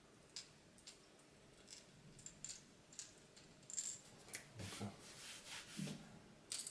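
Faint scattered clicks and light rubbing as a plastic rattlin lure with metal treble hooks is turned over in the hands.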